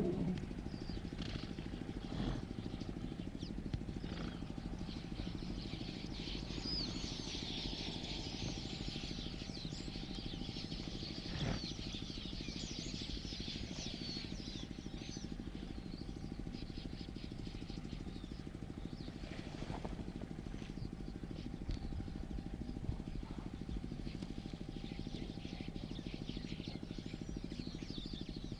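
Small birds twittering in a dense chatter, thickest in the middle stretch and again near the end, over a steady low hum.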